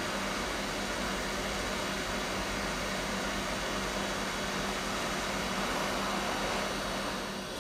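Hot air rework station blowing steadily: a continuous hiss of air over a low, even hum from its blower, which eases off slightly near the end.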